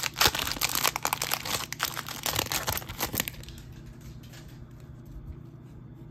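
Foil wrapper of a Topps Chrome F1 trading-card pack being torn open and crinkled, a dense crackling that stops about three seconds in. A few faint ticks of cards being handled follow.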